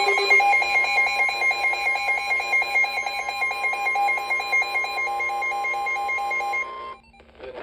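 Emergency alert tones announcing a special marine warning: a steady tone near 1 kHz with a rapid beeping alarm, about four beeps a second, over it. Both cut off suddenly about seven seconds in.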